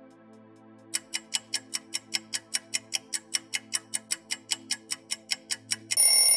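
Countdown-timer sound effect: a clock ticking about five times a second over soft background music, then, near the end, an alarm bell ringing loudly as the time runs out.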